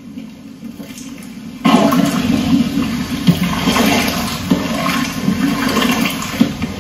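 Water poured or sloshing into a large cooking pot of curry mixture: a loud rushing and splashing that starts suddenly about two seconds in.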